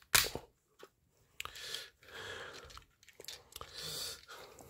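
Plastic parts of a Transformers figure being worked apart by hand as an arm is pulled off the combined robot. There is a sharp click just after the start, then stretches of creaking, scraping plastic.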